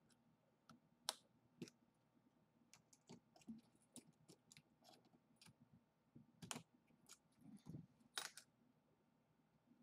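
Faint, scattered clicks and taps of a key being turned in a makeup train case's lock, with two sharper clicks in the second half as the lock engages.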